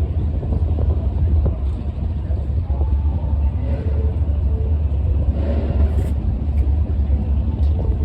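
Steady, deep rumble of car engines running, with faint voices in the background.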